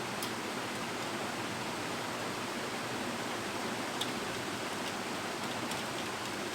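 Steady hiss with a few faint, sharp clicks of a screwdriver tightening a screw on the processor cover of a desktop PC.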